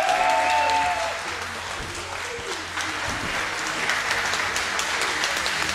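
Crowd applauding and cheering as the fight ends by submission, with a voice calling out near the start.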